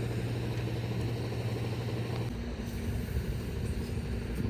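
A vehicle engine running steadily with a low hum; its tone shifts a little over two seconds in.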